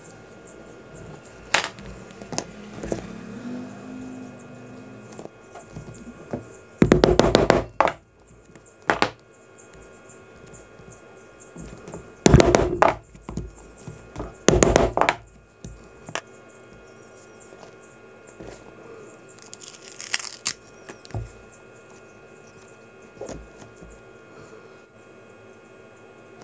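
Leatherworking hand tools knocking on a workbench: three short bursts of rapid knocks, each about a second long, with scattered single taps between them and a brief scratchy hiss past the middle.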